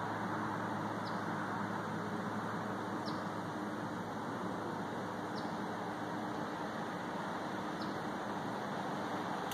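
A steady, distant engine-like rumble with a low hum underneath, easing slightly after the start. Over it, a bird gives a faint, short, high chirp about every two seconds.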